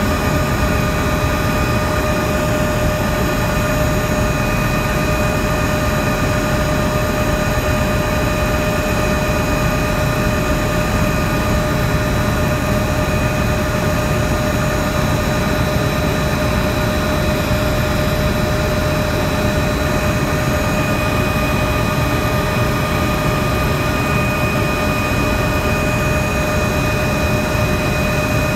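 Helicopter in flight, heard from on board: the steady drone of engine and rotor with a constant high whine over it.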